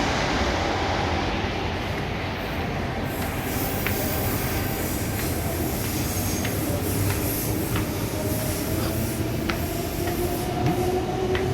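A train running through the station, a steady rumbling rush with a tone that rises slowly in pitch over the second half, as of the train gathering speed.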